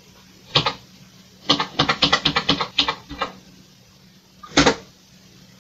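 Keys pressed on a Commodore VIC-20's mechanical keyboard: a single key click, then a fast run of about a dozen clicks as a row of dashes is typed, then one more click near the end.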